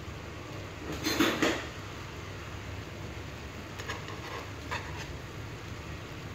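Metal spoon against a coated wok holding simmering cream sauce: a short scrape about a second in, then a few light clinks, over a steady low hum.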